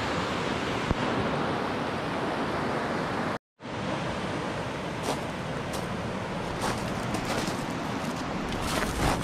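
River water rushing over rapids, a steady rush that cuts out for a moment about a third of the way in. In the second half there are scattered crunches of stones on a cobble bar, loudest near the end.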